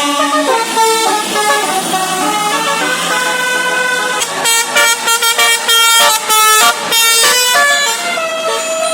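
Basuri 'telolet' musical air horns on buses playing quick melodic runs of short notes, several horns overlapping. There is a burst of short, loud blasts in the middle.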